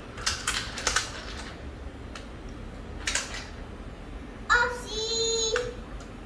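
Light clicks and rattles of plastic toy cars being handled. About halfway through comes a high-pitched held note lasting about a second.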